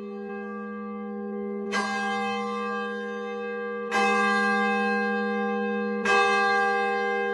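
A church bell tolling, struck about every two seconds (three strokes), each stroke ringing on and overlapping the hum of the one before.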